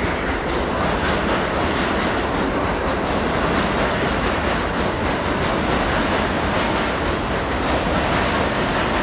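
New York City Subway train running through the station at speed: a steady, loud rumble of steel wheels on the rails.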